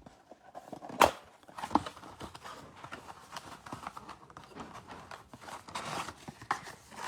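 Packaging of a trading-card blaster box being opened and handled: cardboard and plastic rustling and crinkling with scattered clicks and a sharp snap about a second in.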